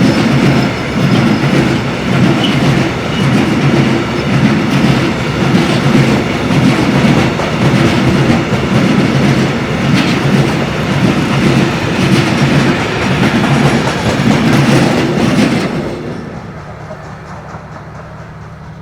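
Freight train of Eas open wagons loaded with coking coal fines rolling past, the wheels clattering over the rails in a regular pulsing rhythm. About sixteen seconds in the noise falls away sharply, leaving a fainter steady rumble.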